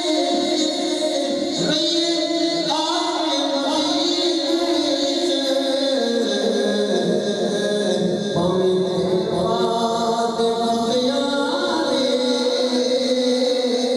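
Voices chanting together in devotional zikr, unaccompanied, in long held notes that step between pitches.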